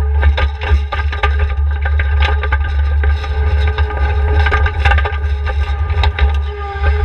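New Holland L220 skid steer running, with a rapid string of sharp knocks, cracks and scraping rattles as it works.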